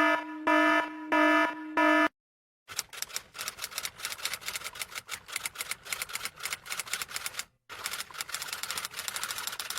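Four short electronic beeps, each about half a second long, followed by a short pause and then a long run of rapid, dense typing clicks with one brief break, as in a keyboard-typing sound effect.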